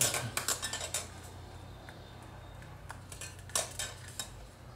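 Aluminium wire scraping and clicking as it is worked through a small drilled hole in a wooden spatula, the wire a bit thick for the hole. There is a quick cluster of scratchy clicks in the first second and a couple more about three and a half seconds in.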